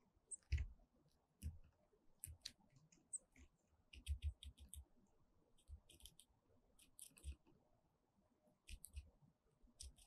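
Grey-headed woodpecker pecking at food hung on a feeder pole: faint, sharp taps of its bill, some single and some in quick runs of five or six.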